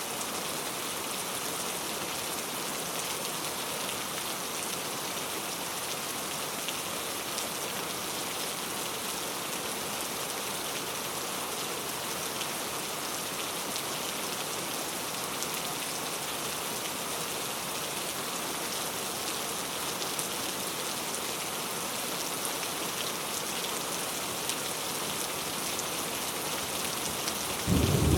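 Very heavy rain pouring steadily in a dense hiss. Near the end, a loud low rumble of thunder breaks in suddenly.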